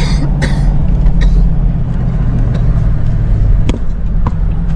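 Steady engine and road noise heard inside a moving car's cabin, a low hum under tyre noise, with a few short clicks scattered through it.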